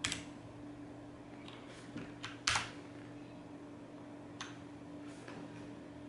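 About eight separate key presses on a HyperX Alloy mechanical keyboard with Cherry MX switches, short sharp clacks at uneven gaps, the loudest right at the start and about two and a half seconds in. They are presses that switch the keyboard's backlight effect. A faint steady hum sits underneath.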